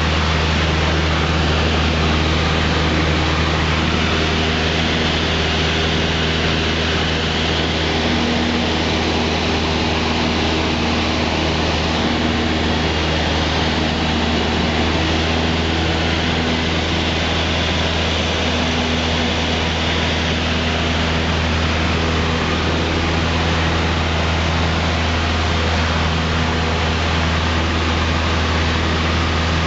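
Cessna 172's piston engine and propeller droning steadily, heard from inside the cockpit, with an even hiss over the deep hum.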